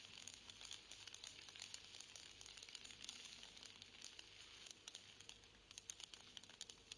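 Faint crackling of a large fireworks display: a dense, irregular run of small sharp pops over a steady hiss.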